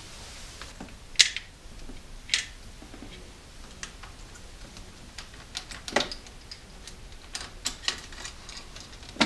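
Irregular sharp clicks and clinks of hands and tools working timing-chain parts loose at the front of an opened engine: a loud click about a second in, another a second later, and a quick run of lighter clicks near the end.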